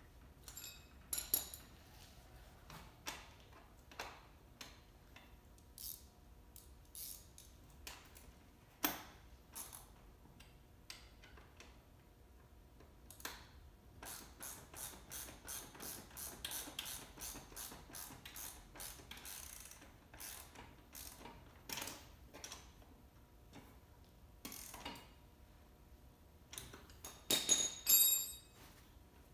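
Hand tools clicking and knocking while the front wheel of a small electric kids' ATV is fitted: scattered sharp clicks, a run of quick, evenly spaced clicks for several seconds in the middle, and a louder clatter near the end.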